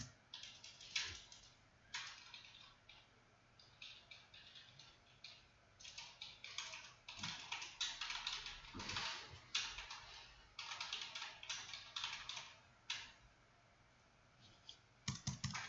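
Faint, irregular clicking and tapping of a computer keyboard, coming in scattered runs and busiest in the middle.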